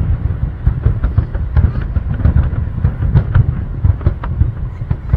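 Aerial fireworks going off in rapid succession: a dense, continuous run of bangs and crackles with heavy low booming underneath.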